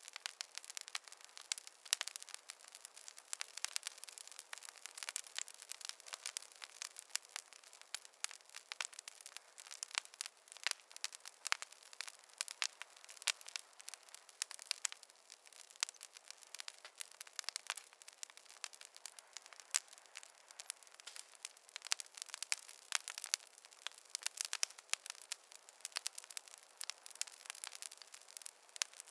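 Campfire crackling: dense, irregular pops and snaps of burning wood, many each second, over a faint hiss.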